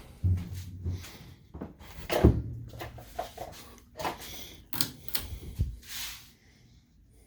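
Irregular knocks, clicks and rustles of handling, with a few low thuds; the loudest comes a little after two seconds in, and they stop about six seconds in.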